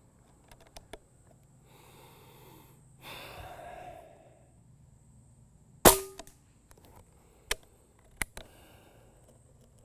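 A single shot from an unsuppressed Benjamin Maximus .177 PCP air rifle about six seconds in: a sharp crack with a short ringing tail, the rifle's little valve ping. Two smaller sharp clicks follow over the next few seconds.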